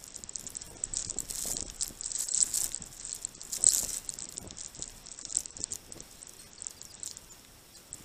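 Great tits and a house sparrow feeding at a snow-covered feeder of oats and frozen apples: a patter of small pecking clicks, scratches and rustles, with the sharpest click a little before halfway.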